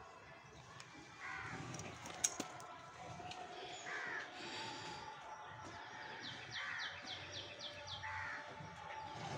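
Crows cawing, single calls every couple of seconds. In the middle comes a rapid run of high chirps, and there is one sharp click about two seconds in.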